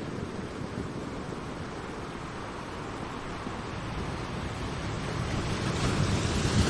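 Ocean waves washing on the shore, a steady surf that swells near the end as a wave breaks.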